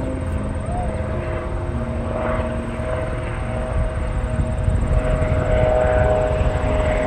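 Helicopter engine and rotor running as it comes in to land, growing a little louder about five seconds in.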